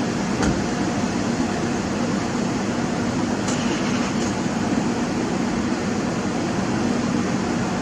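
Steady mechanical drone: a low hum under an even hiss, with a faint click about half a second in.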